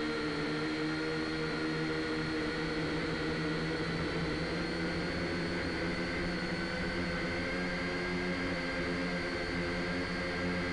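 A drone's motors and propellers whining steadily in flight, several even tones over a constant whirr.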